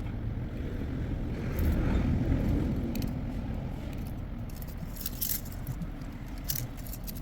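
Small metal clicks and jangling from a set of thin carburetor jet-cleaning wires being handled, with a few sharp ticks in the second half, over a low rumble that swells about two seconds in.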